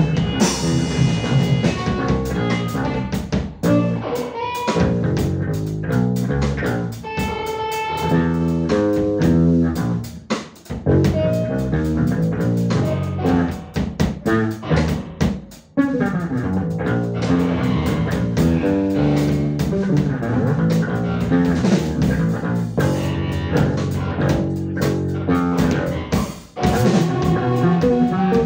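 A trio of modular synthesizer, bass guitar run through effects, and drum kit playing together, the drums in a dense flurry of rapid hits under shifting synth and bass tones.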